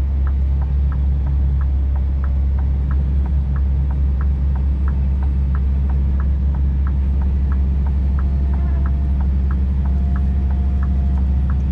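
Scania truck engine running steadily under load in the cab as it climbs a slippery snow-covered road, a constant low drone. Over it the hazard-light relay ticks, about three clicks a second.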